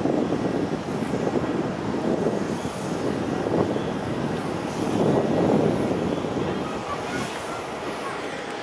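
Bombardier Q400 turboprop airliner climbing away after takeoff, its two Pratt & Whitney PW150A engines and six-bladed propellers heard as a low, rough drone that swells and ebbs in waves and then fades away over the last few seconds as the aircraft recedes.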